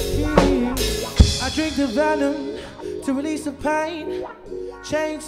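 Background song with a drum kit and a singing voice.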